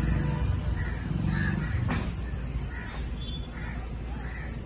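Crows cawing, a string of short calls about a second apart, over a low background rumble that eases after about two seconds; a single sharp click about two seconds in.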